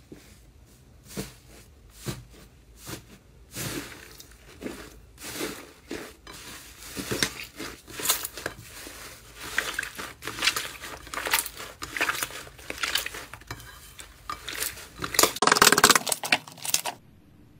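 Thick, fluffy "tofu-dregs" slime squeezed, pressed and torn apart by hand, giving crackling, squelching pops. They come about once a second at first, then crowd closer together, with the loudest, longest crackle near the end.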